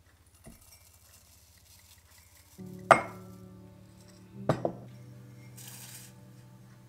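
Glass jar and ceramic mug clinking as they are handled on a wooden counter: one sharp clink about three seconds in, then a quick double clink a second and a half later.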